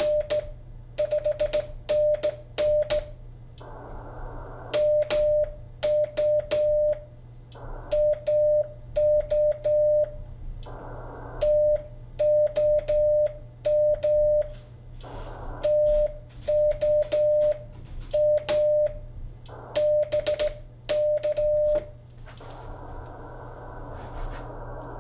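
Morse code hand-sent on a straight key through an Icom IC-7300 transceiver: a steady mid-pitched sidetone keyed on and off in dots and dashes, with a sharp click at each key stroke. Between groups of letters short stretches of receiver hiss come through, and about three seconds before the end the keying stops and the hiss carries on steadily.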